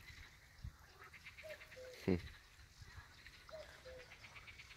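A bird calling a short two-note call that falls in pitch, repeated about every two seconds. A single brief louder sound comes about two seconds in.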